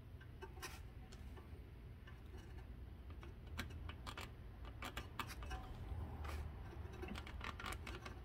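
Faint scattered clicks and rustling, more frequent in the second half, as a plastic air line gripped in a paper towel is pushed hard into the brass Voss fitting of an air-suspension shock to seat it. A low steady hum runs underneath.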